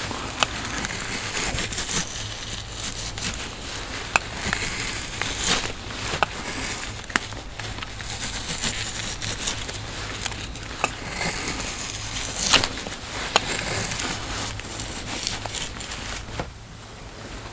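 Knife cutting raw moose meat off the rib bones over a wooden chopping block, a continuous noisy cutting and tearing with many short sharp clicks of the blade scattered throughout.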